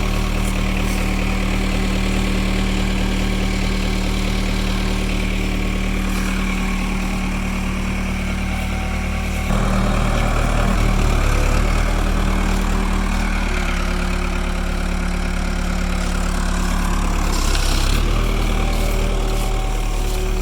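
Case 580E backhoe's diesel engine running steadily while the hoe works. About halfway through the engine note steps up and gets louder, then it settles and changes again near the end as the load comes and goes.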